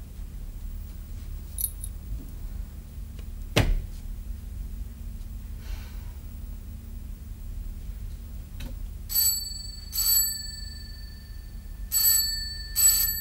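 Desk telephone bell ringing in two double rings, starting about nine seconds in, over a steady low hum. Earlier, about three and a half seconds in, there is a single sharp knock.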